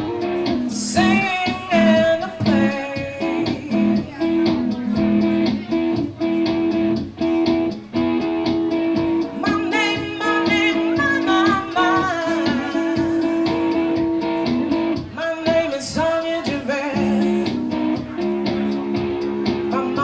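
A singer performing with a strummed guitar: steady chords under sung phrases that come in three times, separated by stretches of guitar alone.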